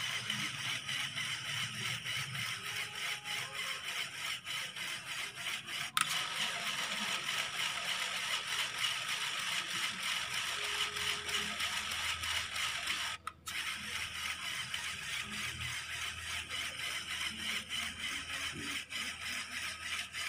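Small electric motor driving a Lego Technic pneumatic compressor, running with a steady whir and a fast rattle. There is a sharp click about six seconds in, and the sound drops out briefly near the end.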